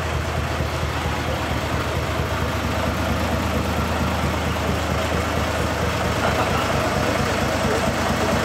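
Truck engine idling steadily, a low even drone with no change in speed.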